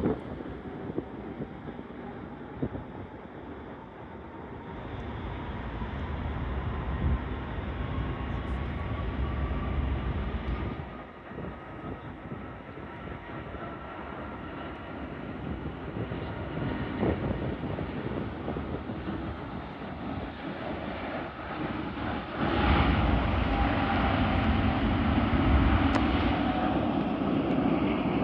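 Jet airliner engines at a distance: a steady rumble with a faint whine that rises slowly in pitch over the first ten seconds or so, then the rumble grows louder and deeper about 22 seconds in.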